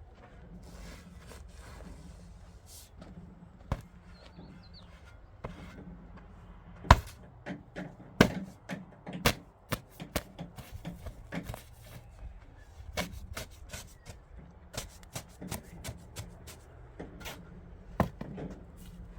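Irregular knocks and taps, sparse at first and coming thick and fast from about a third of the way in, over a faint low steady hum.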